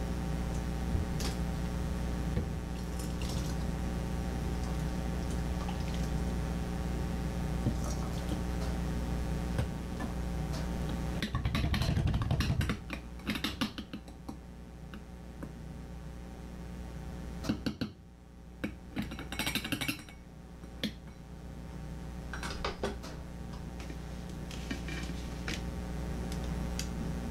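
A ladle clinking and scraping against a stainless steel stockpot and a glass canning jar as blanched pumpkin cubes are spooned into a quart jar, over a steady background hum. The loudest clatter comes about eleven seconds in, with another run of clinks near twenty seconds.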